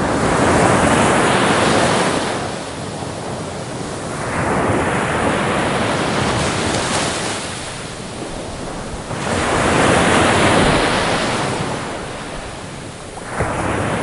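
Sea waves breaking on a shore, each a rushing surge that swells and washes back, one after another about every four to five seconds.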